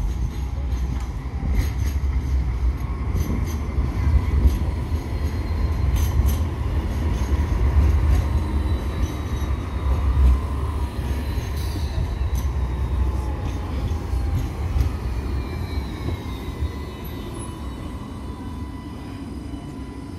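Sydney Light Rail Alstom Citadis tram passing close by: a steady low rumble with thin whining tones from its running gear and wheels on the rails. Some of the whine falls in pitch near the end as the tram moves off toward the stop.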